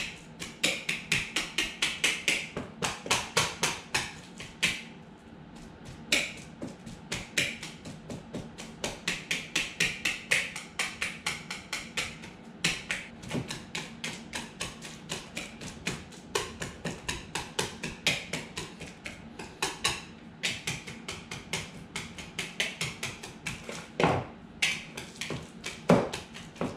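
Fork mashing ripe bananas in a bowl, clicking against the bowl about four times a second, with two louder knocks near the end.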